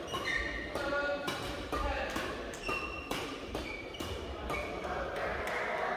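Badminton hall ambience in a large hall: sharp racket-on-shuttlecock hits and short squeaks of court shoes from several courts, over background voices.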